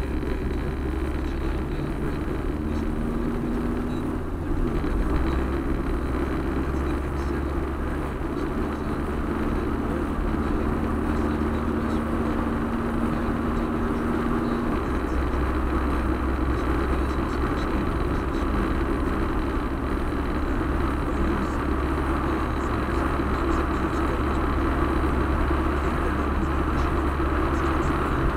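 Steady car road noise heard from inside the cabin while driving: low tyre and engine rumble with a constant hiss. A faint low hum comes in twice and fades out again.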